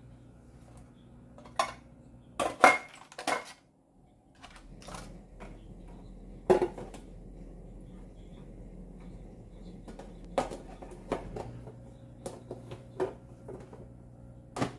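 Dishes and food containers being set down and moved about on refrigerator shelves: a scattered string of sharp clinks and knocks, loudest in a quick cluster about two and a half to three and a half seconds in.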